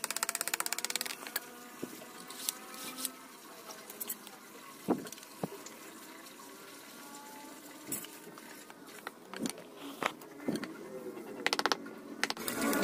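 Electric mini grinder (rotary carving tool) dying away within the first second, then a lull with scattered light knocks and clicks from handling the wooden workpiece; the grinder runs again near the end.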